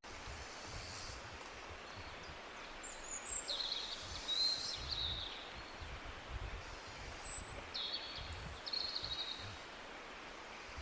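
Tropical birds calling in two bouts of high, quick chirps and trills, the first about three seconds in and the second about seven seconds in, over a low rumble of ambient noise.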